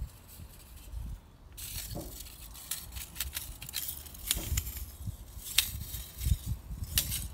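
Handling noise from a handheld phone: low rumbling with scattered sharp clicks and scrapes, growing busier with a hiss from about a second and a half in.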